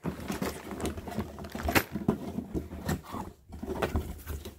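Close handling noise: irregular rustling and light knocks as a plastic bag of stakes and tethers is put into a cardboard box, with a low rumble from the covered camera.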